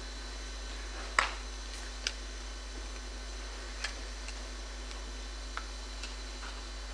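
Sparse small clicks and taps from a performer moving in silence, the sharpest about a second in, over a steady low mains hum.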